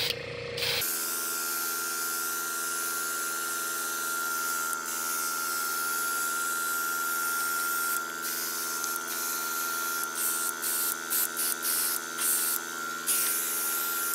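Airbrush spraying thinned metallic silver paint: a steady hiss of air and paint over a constant hum. From about eight seconds in, the hiss cuts on and off in short bursts as the trigger is worked.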